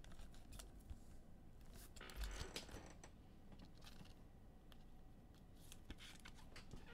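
Faint handling sounds of trading cards and plastic sleeves: a few light clicks and a short rustle about two seconds in.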